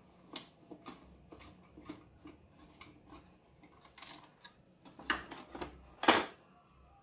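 Plastic clicks and rubbing as the front grille of a Wahoo KICKR Headwind fan is worked loose by hand, then two louder scraping clatters about five and six seconds in as the panel is pulled away.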